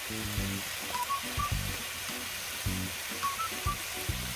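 Background music with a short rising three-note figure that repeats about every two seconds, over a steady sizzle from pork, kimchi and vegetables frying on a cast-iron griddle pan.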